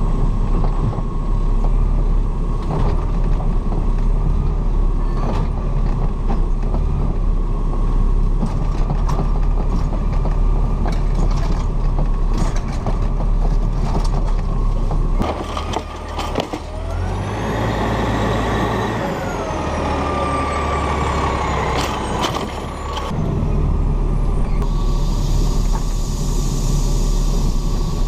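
Automated side-loader garbage truck heard from its hopper: the diesel engine running steadily with clanks and rattles of the arm and hopper. About halfway through, a whine rises, holds for a few seconds and falls away, and near the end a hiss sets in as the arm lifts the next can.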